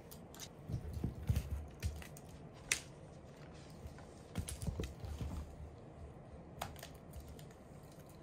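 A mame shiba puppy's paws and claws clicking and scuffling on a wooden floor as it jumps and spins after a ribbon toy, with scattered sharp clicks and soft thumps as it lands.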